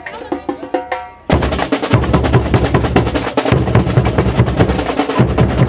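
Music: a light, rhythmic tapped pattern with pitched notes, then about a second in a full band with drums comes in loudly.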